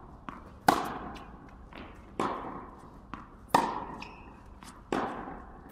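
Tennis rally: a tennis ball struck by rackets four times, about a second and a half apart, each hit ringing on in a large indoor hall, with softer knocks of the ball between the hits.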